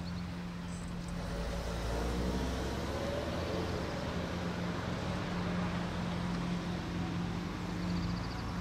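Passenger cars driving slowly over a level crossing, with their engines running as a steady low hum and a passing sound that swells about two seconds in.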